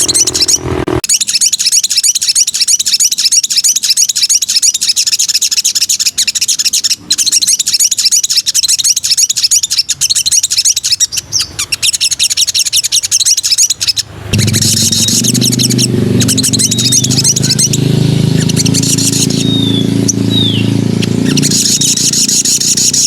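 Sogon (spiderhunter) singing a long, fast, high-pitched chattering song with only brief breaks. About two-thirds through, a steady low hum comes in underneath, and a few short downward-sliding whistles sound near the end.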